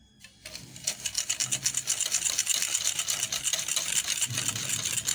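Wire whisk beating egg yolks and sugar in a bowl, a fast, steady run of scraping strokes against the bowl that starts about a second in.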